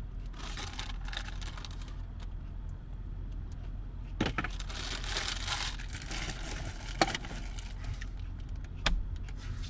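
Plastic shopping bag rustling and crinkling as it is handled, in two spells, with a couple of sharp knocks later on, over a steady low hum.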